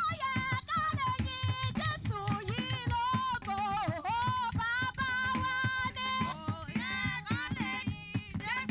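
A high voice singing a melody over fast, busy traditional drumming on small laced hand drums struck with a stick.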